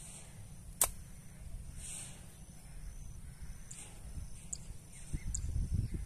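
A slingshot fired once: a single sharp snap about a second in. Near the end come low thumps and rustling of someone pushing through brush.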